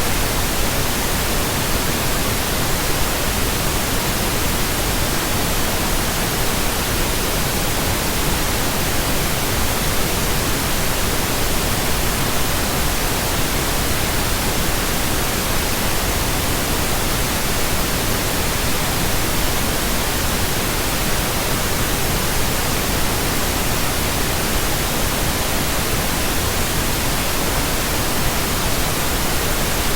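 Steady synthetic pink noise: an even, unchanging hiss across all pitches.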